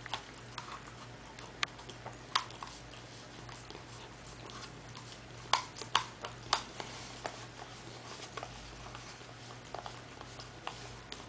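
A corgi licking yogurt from a plastic cup held to its mouth: irregular clicks of tongue and teeth on the plastic, with a quick run of louder ones about halfway through.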